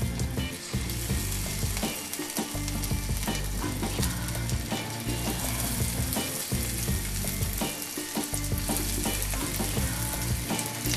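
Tempura-battered mint leaves frying in hot oil in a wok: a steady crackling sizzle that goes on as more leaves are dropped in.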